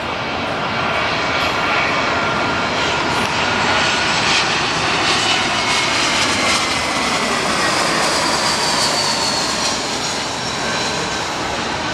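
Twin-engine jet airliner on final approach passing low overhead with its gear down: a loud, steady rushing engine noise that swells toward the middle and eases off, with a whining engine tone that slides down in pitch as it goes by.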